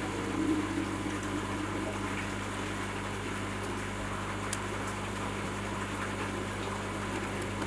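Steady low hum of a running pond pump over a faint wash of water, with a few faint clicks.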